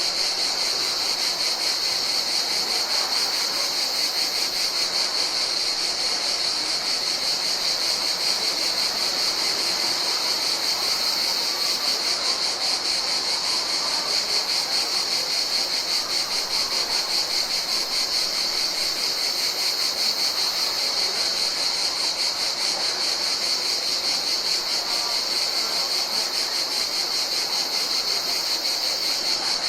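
Chorus of summer insects: a continuous, high-pitched trill held at one steady pitch without a break.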